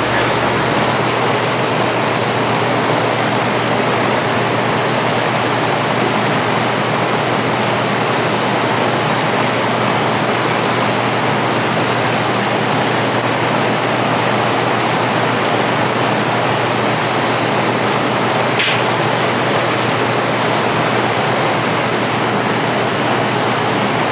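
A steady, even rushing noise like a hiss, with no rhythm or pitch change, and a single light click about three-quarters of the way through.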